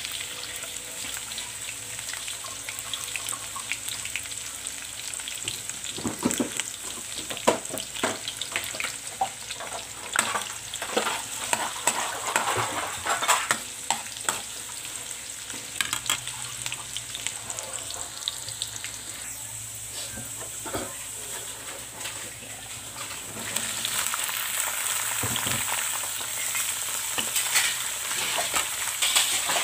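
Chopped garlic and onions sizzling in hot oil in a wok, with a spatula scraping and clicking against the pan as they are stirred toward golden brown. The sizzle grows louder about three-quarters of the way through.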